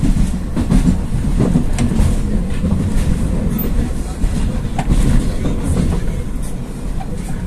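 Rusich (81-740/741) articulated metro train running at speed, heard from inside the car: a steady low rumble of wheels and running gear with scattered clicks as the wheels pass over rail joints.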